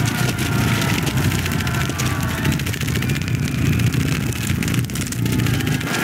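Grasshoppers' wings buzzing in an animated film's sound effects: a loud, steady low drone with a fast flutter, like many wings beating at once.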